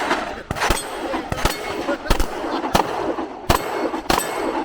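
A string of about eight gunshots fired at an uneven pace, roughly one every half-second to second, each followed by a short ringing echo.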